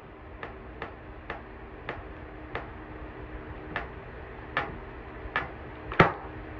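A 120-year-old hardwood floorboard and its nails clicking and creaking in small sharp ticks as a flat pry bar slowly levers the board up, the ticks coming about half a second to a second apart and ending in a louder crack about six seconds in. A faint steady hum runs underneath.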